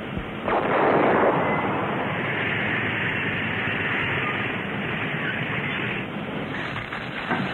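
Sherman tank driving forward with a pickup truck frame welded to its front. Its engine and tracks make a loud, steady, noisy din that swells about half a second in and eases slightly near the end.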